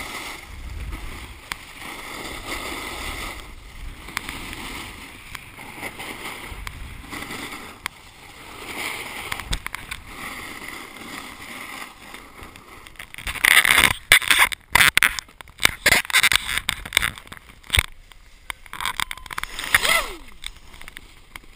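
A snowboard sliding and scraping over packed snow, heard through an action camera's microphone as a steady hiss. From about 13 seconds in it turns louder and choppy, with sharp scrapes and knocks.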